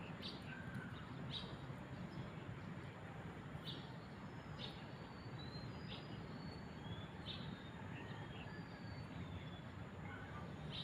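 Birds chirping: short high chirps and thin whistled notes, about one a second, over a steady low rumble of background noise.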